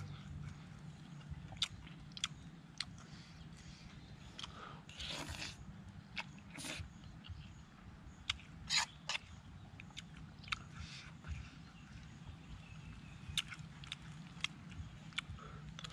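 A person chewing a mouthful of noodles and meatballs, with scattered sharp clinks and scrapes of a metal fork against a metal pan.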